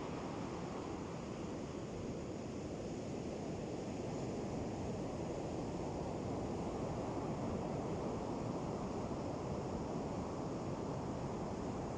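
Ocean surf: a steady wash of waves on a beach, swelling slightly about two-thirds of the way through.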